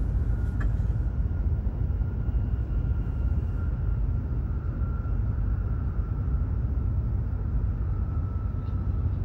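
Cabin running noise of a Hokuriku Shinkansen train at speed, heard from inside the Gran Class car: a steady low rumble with a faint steady whine above it.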